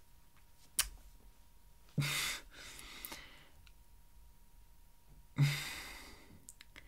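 A man sighing heavily twice, long breathy exhales that start with a low voiced groan, one about two seconds in and a louder one about five and a half seconds in; exasperated sighs of someone left speechless. A short sharp click comes just before the first.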